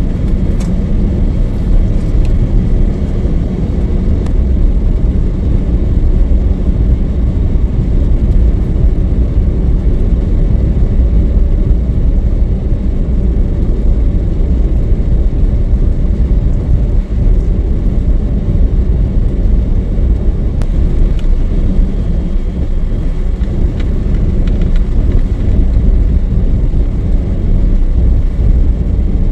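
Pickup truck driving on a snowy road: a steady low rumble of engine and tyre noise.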